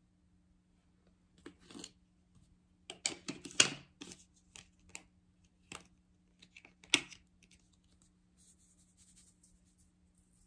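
Plastic spice shaker of onion powder being shaken and tapped over a stainless steel bowl of raw chicken wings: clusters of clicks and rattles, loudest about three and a half seconds in, then scattered taps and a faint hiss near the end.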